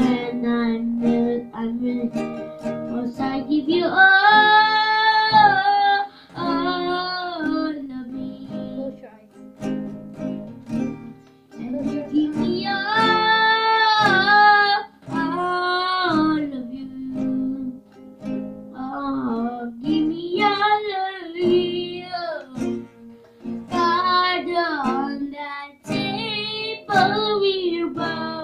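A child singing a song while strumming an acoustic guitar, with long held sung notes about four seconds in and again about twelve seconds in.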